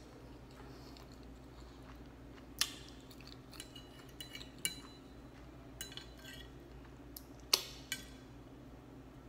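Fork clinking and scraping against a plate, a handful of sharp irregular clicks, the loudest about seven and a half seconds in.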